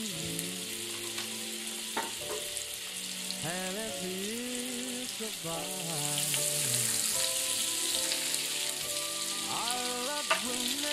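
Butter and oil sizzling and foaming in a hot frying pan as the butter's water boils off, stirred with a fork. The sizzle grows louder about six seconds in, over background music.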